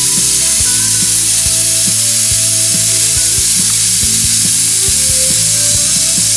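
Stovetop pressure cooker whistling: a loud, steady hiss of steam escaping past the weight, with the weight rattling irregularly on its vent. The cooker has come up to full pressure.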